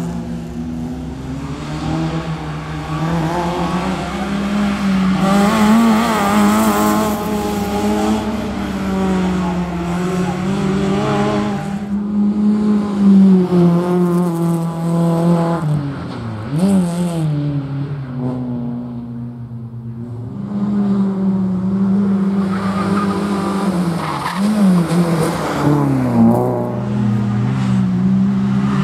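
Opel Astra slalom car's engine revving hard, its pitch climbing and dropping again and again with gear changes and lifts through the cones. At times the tyres squeal.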